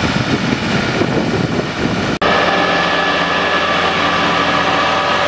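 Heavy trucks' diesel engines running as heavy-haul rigs move along the road. A brief dropout about two seconds in, after which the sound becomes a steady, many-toned engine drone.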